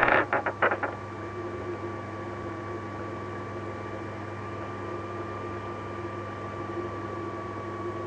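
A few short crackles in the first second, then a steady electrical hum with a thin high whine over it.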